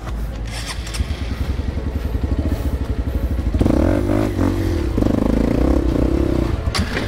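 Dirt bike engine running at low revs under way, then revving up under throttle twice, at about three and a half and five seconds in, before easing off near the end.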